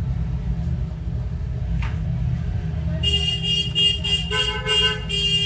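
Vehicle horns honking in street traffic: about three seconds in, a horn starts sounding in quick repeated toots, and a second, lower horn joins a second later. A steady low traffic rumble runs underneath.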